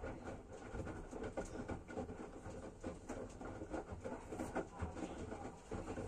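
Front-loading washing machine in its wash cycle: the drum turning and the wet laundry tumbling and sloshing in soapy water, with irregular soft thuds and splashes.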